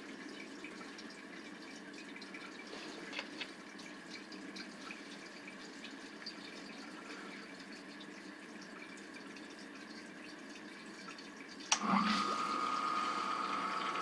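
Faint water filling a sump crock from a submerged hose, with light drips. About twelve seconds in, the front submersible sump pump kicks on with a thump as its float is lifted by the rising water, then runs with a steady whine.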